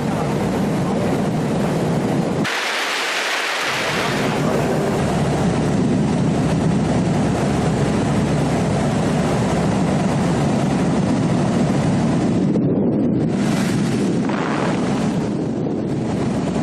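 Steady wind rumble buffeting the microphone, with a brief hissier gust about two and a half seconds in and uneven gusts near the end.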